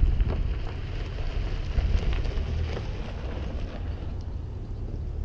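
Wind buffeting the microphone: a loud, fluttering low rumble.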